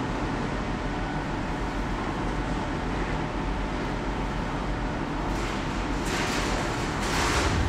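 Steady hum of industrial bakery machinery, with a louder hiss swelling up in the last two seconds.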